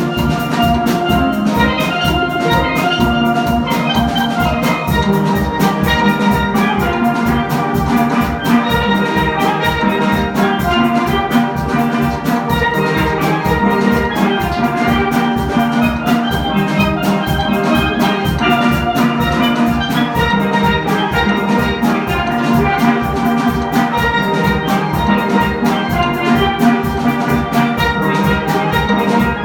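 A steel band playing: many steelpans ringing out melody and chords over a drum kit keeping a steady beat.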